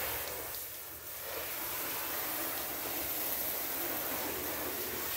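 Garden hose spray nozzle spraying water onto a car's side panels, a steady hiss of spray that dips briefly about a second in.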